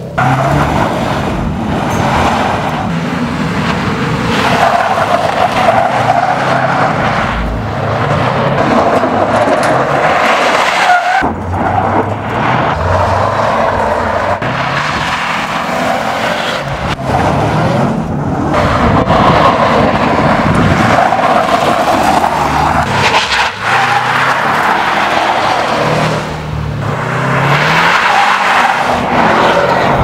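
2015 Subaru WRX STI's turbocharged flat-four revving hard, its note rising and falling again and again as the car is powerslid, with tyres skidding on loose gravel. Some passages are heard from the roadside and some from inside the cabin.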